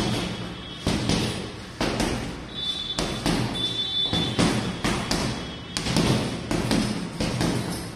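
Gloved punches landing on a heavy leather punching bag: a run of dull thuds, the hardest about one a second with lighter hits between.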